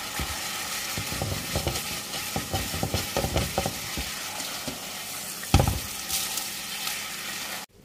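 Stir-frying in a nonstick pan: a plastic spatula scraping and turning Chinese celery and spring onion over fish pieces in hot, sizzling sauce, just until the greens wilt. A louder knock comes about five and a half seconds in, and the sound cuts off suddenly near the end.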